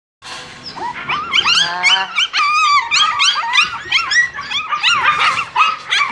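Maltese puppies yelping and whining over and over, short high-pitched calls that rise and fall, several a second.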